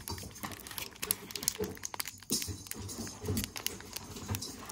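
Foil Pokémon card booster pack wrapper crinkling and tearing as it is opened by hand, a run of irregular sharp crackles.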